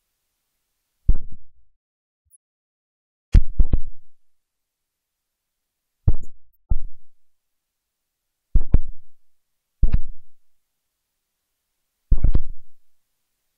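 Low thumps on the camera's microphone, about seven at uneven spacing of one to two and a half seconds, each dying away within half a second, with dead silence between them.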